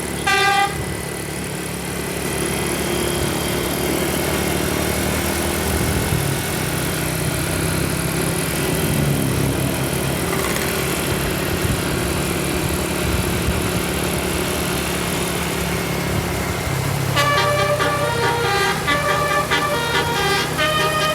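Multi-tone bus 'telolet' horn playing runs of stepped notes, heard briefly at the start and again from about 17 seconds in. In between, the bus engine runs steadily with road noise.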